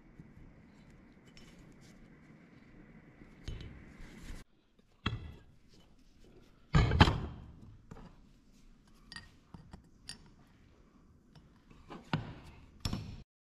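Heavy metal compressor parts knocked and set down on a workbench, the loudest a clunk about seven seconds in as the cast-iron seal cover goes down on a steel plate, with lighter clinks between. Near the end, two hammer taps on a punch, starting to drive out the worn, damaged lip seal.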